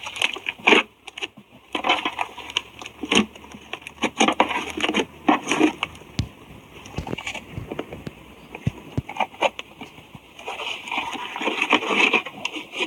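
Slime being mixed and squished, giving irregular sticky clicks, pops and crackles.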